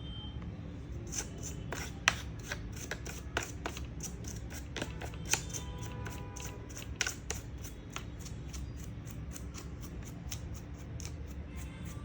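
Ultra-soft toothbrush brushing dust from the inside of a laptop, in quick short strokes about four a second, one louder stroke about two seconds in.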